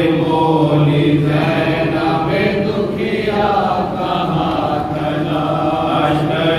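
A noha, a Shia lament, chanted by a male reciter into a microphone in long held, wavering lines.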